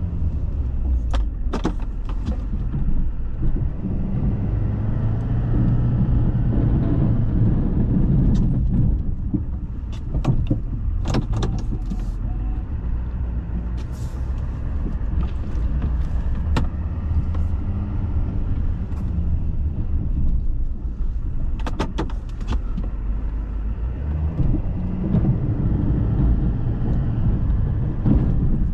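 GMC pickup truck running while plowing, a steady low engine and road rumble with scattered sharp clicks and knocks.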